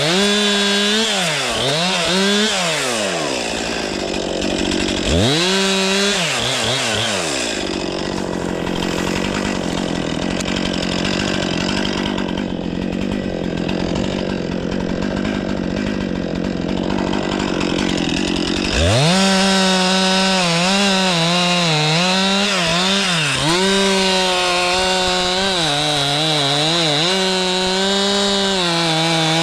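Stihl MS 500i two-stroke chainsaw, throttle blipped up and down several times, then idling for about eleven seconds. Near the end it runs at high revs again, the pitch dipping and recovering repeatedly.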